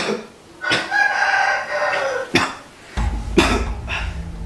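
A man coughs sharply a few times while a rooster crows once, a drawn-out call. A low steady hum comes in about three seconds in.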